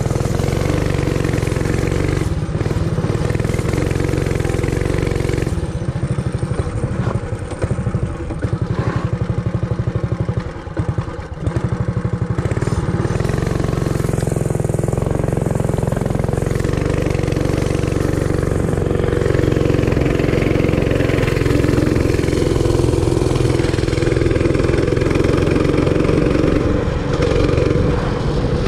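Realtree RT200 minibike's 196cc single-cylinder four-stroke engine, fitted with a custom exhaust and with its governor disabled, running as the bike is ridden. It eases off into a choppier, uneven beat for several seconds about a fifth of the way in, then runs steadier and louder from about two-thirds in as it pulls up the street.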